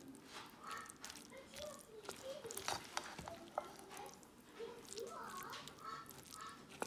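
Silicone spatula stirring and folding a mayonnaise-dressed pasta salad in a stainless steel bowl: faint, soft wet scraping with scattered light clicks against the bowl. Faint voices in the background.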